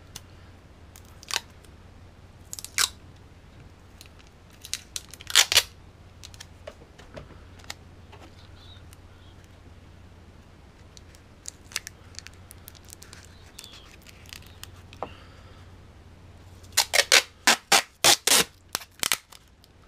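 Adhesive tape being pulled off the roll and torn while it is wrapped around a small firework shell: a few separate sharp rips, then a quick run of loud rips near the end.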